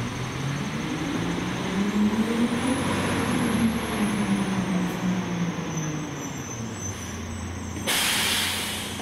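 Battle Motors LET2 garbage truck with a McNeilus rear-loader body driving forward: its engine rises in pitch as it pulls away, then falls as it slows. Near the end comes a sharp hiss of air lasting about a second as the air brakes are applied at the stop.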